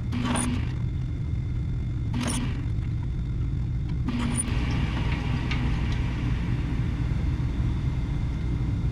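Walker Turner drill press running with a steady low hum while a drill bit enlarges holes in a steel handle, with three short sharp cutting bursts about two seconds apart in the first half.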